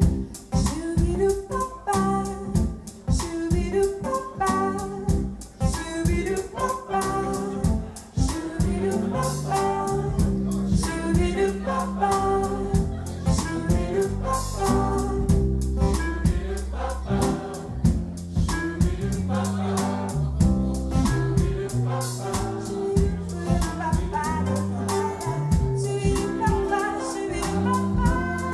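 Live acoustic folk-pop band: a woman singing into a microphone over acoustic guitar, acoustic bass, clarinet and a drum kit keeping a steady beat.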